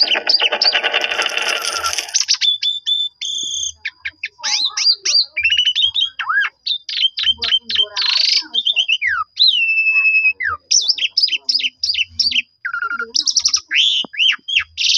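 Asian pied starling (jalak suren) singing a long, varied song, running through its repertoire. A harsh, raspy chatter fills the first two seconds, then comes a rapid string of whistles, chirps and sliding notes, several of them falling whistles.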